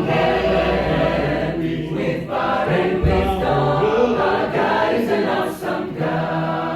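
Gospel praise team singing together as a choir, several voices in harmony.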